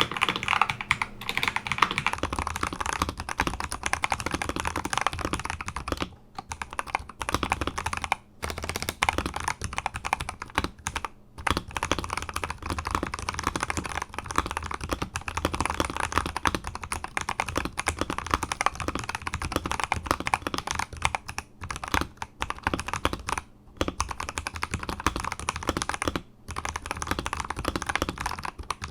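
Fast continuous typing on an Akko 5075S mechanical keyboard with Akko Sponge switches lubed with Krytox 205g0, mounted on a polycarbonate plate: a dense stream of keystroke clacks with a few brief pauses.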